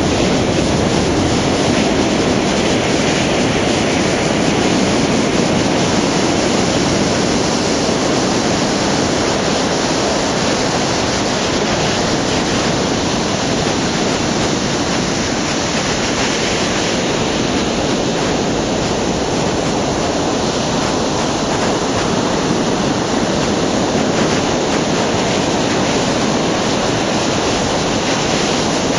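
Atlantic Ocean surf breaking on the shore: a loud, steady rush of breaking waves and foam.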